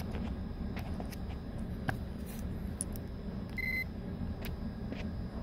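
Steady low rumble with a few light clicks and taps, and one short high beep a little after halfway: the continuity beeper of a Fluke T5-600 electrical tester, sounding as a new fuse checks good.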